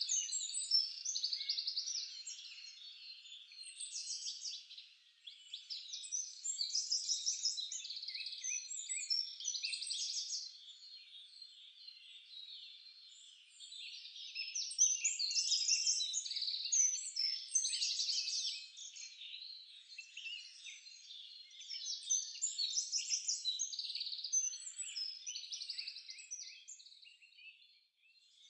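Many small birds chirping and twittering in a dense, overlapping chorus, coming in waves with brief lulls; high and thin, with no lower sounds beneath it.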